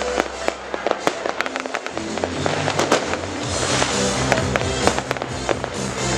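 Fireworks and firecrackers going off in many quick, irregular cracks and bangs. Music with a steady bass line comes in about two seconds in.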